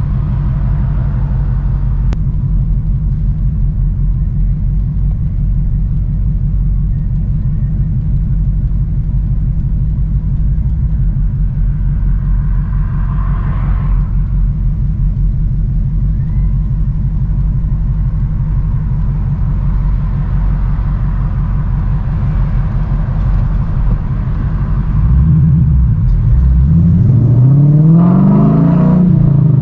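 V8 engine and exhaust rumbling at low, steady revs, then accelerating near the end: louder, with the pitch climbing, dropping briefly and climbing again, as through a gear change.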